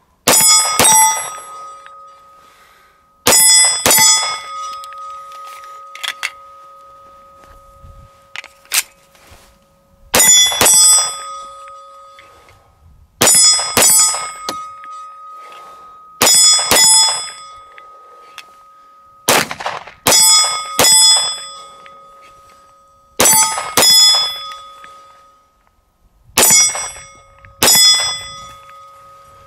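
Arex Delta 9mm pistol fired in quick double shots, about nine pairs roughly three seconds apart. Hits set a steel plate target ringing with a clear bell-like tone that fades over a few seconds.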